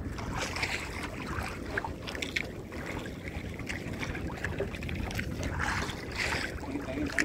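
Steady wind and water noise aboard a small boat at sea, with wind buffeting the microphone.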